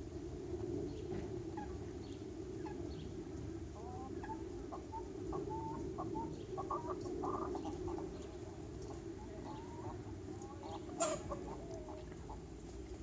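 Flock of chickens clucking in short, scattered calls, busiest in the middle and again near the end, over a steady low hum. A sharp click about eleven seconds in.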